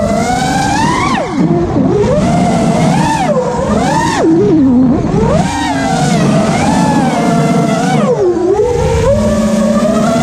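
FPV freestyle quadcopter's brushless motors whining, the pitch rising and falling quickly with every throttle change and dipping deeply about eight seconds in, over a low rush of wind and prop wash.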